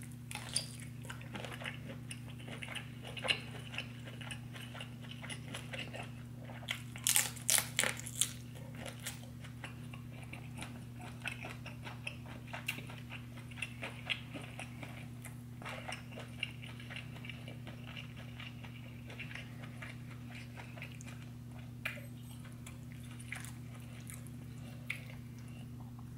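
Close-miked mukbang eating of a seafood boil: chewing and biting, with a cluster of louder crunchy bites about seven to eight seconds in. A steady low hum runs underneath.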